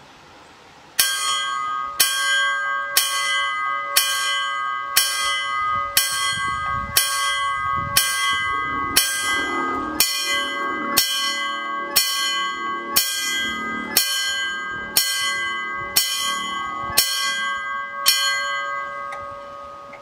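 Danish level crossing warning bell starting about a second in and striking about once a second, each stroke ringing on into the next. The strikes stop near the end and the ringing fades out. The bell warns of an approaching light rail train.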